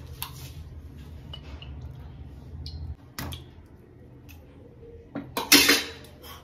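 A steel spoon clinking against an iron kadai as a lump of butter is pushed off it into the pan: a few light clicks, then a louder metal-on-metal clatter about five and a half seconds in.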